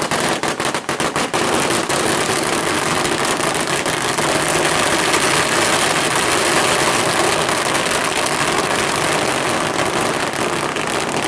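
A long run of firecrackers going off in rapid succession. Separate bangs in the first couple of seconds merge into a dense, continuous crackle.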